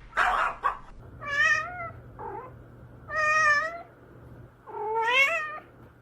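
Domestic cat meowing three times, each call about a second long, the last one rising in pitch. A short hissing noise comes just before the first meow.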